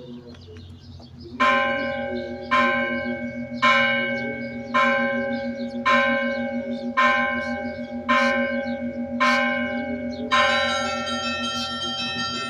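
Russian Orthodox church bells being rung: one bell struck evenly about once a second, each strike ringing on. Near the end a brighter, fuller strike comes in as more bells join.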